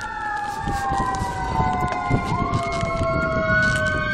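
Fire truck sirens wailing, several overlapping tones slowly falling and rising in pitch against each other, over a low rumble.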